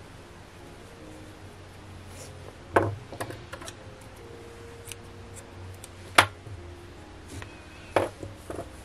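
A few sharp clicks and taps from a metal crochet hook and scissors being handled while the yarn is fastened off, the loudest about six seconds in.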